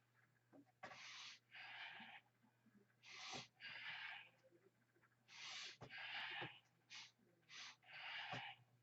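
A man breathing hard through push-ups: paired noisy breaths in and out, about one pair every two seconds, one pair per repetition, a few starting with a faint tap.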